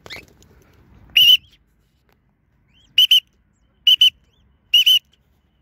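Short, high, steady whistled calls: one single note about a second in, then three quick pairs of notes about a second apart.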